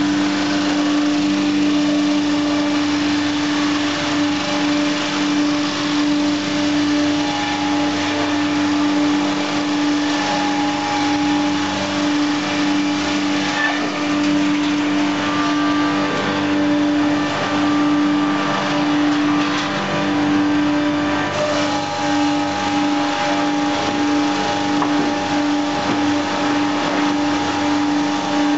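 FBST-220 milling-and-cant sawmill line running, its electric-motor-driven cutter heads milling thin logs into squared cants. A loud, steady machine hum with one strong constant tone under the hiss of cutting.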